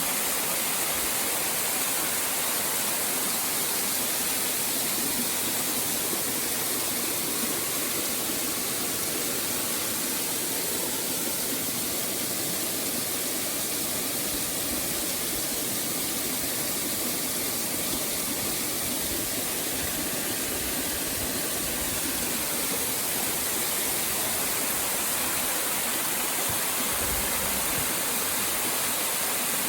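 Steady rushing of a waterfall, the Haha no Shirataki falls, an even, unbroken roar of falling water.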